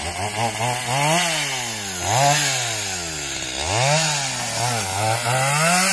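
Petrol chainsaw revving up and dropping back about four times, its engine pitch climbing sharply and falling to a low idle in between.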